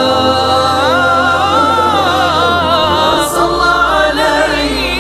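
Arabic nasheed being sung, the voice drawing out long, ornamented notes that wind up and down over a steady low drone.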